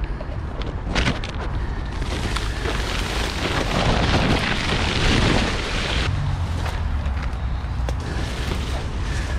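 Leaves and twigs rustling and scraping against the camera as it is pushed through dense bushes, loudest for a few seconds in the middle, with a snap about a second in. A steady low rumble runs underneath.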